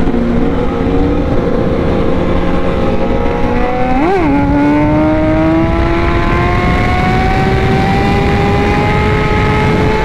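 Superbike engine heard from on board, pulling hard at high speed, its pitch climbing slowly and steadily, with one quick rise and drop in pitch about four seconds in like a gear change. Heavy wind rush over the microphone throughout.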